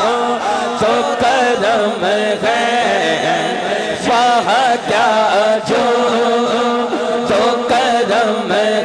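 A male naat khawan singing a naat, an Urdu devotional song, into a handheld microphone, in long wavering melismatic phrases.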